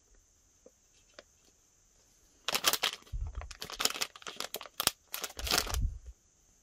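Plastic squishy packaging bag crinkling as it is handled and turned over, off and on through the second half, with a couple of dull bumps; quiet at first.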